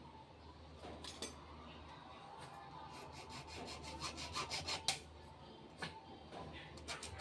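Rapid back-and-forth rubbing strokes on PVC pipe, about six a second, starting about four seconds in over a steady low hum. The pipe is being prepared by hand for a solvent-cement joint.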